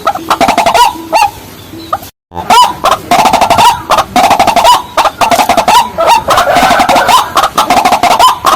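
Rails of the waterhen kind calling: a dense, rapid series of loud, repeated croaking notes from more than one bird. The calls break off completely for a moment about two seconds in, then resume.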